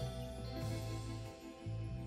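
Instrumental background music with sustained notes over low bass notes.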